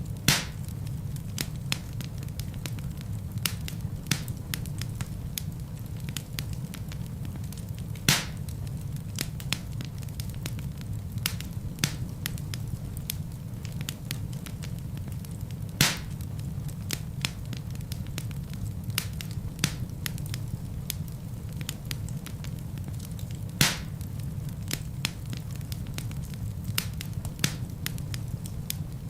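Wood fire burning in a fireplace: a steady low rumble under dense small crackles, with four louder pops of the wood at even intervals about eight seconds apart.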